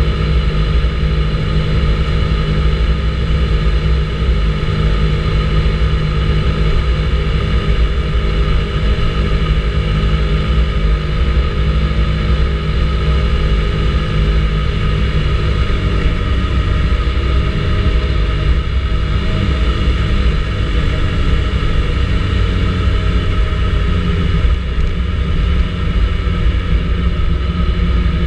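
Vespa GTS 300 ie scooter's single-cylinder four-stroke engine running steadily while riding, under a strong low wind rumble on the action camera. The engine note shifts a little partway through.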